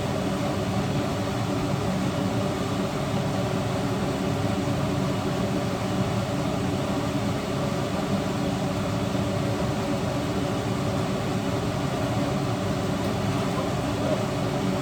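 Steady whirring hum of a fan or appliance motor, unchanging throughout.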